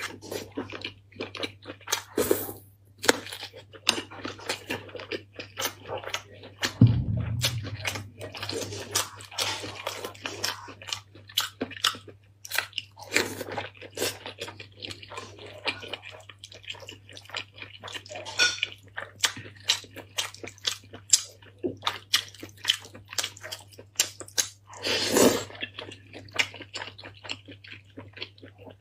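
Close-miked chewing and biting: a dense run of short wet smacks and crunchy bites as food is eaten from chopsticks, over a steady low hum, with a dull thump about seven seconds in.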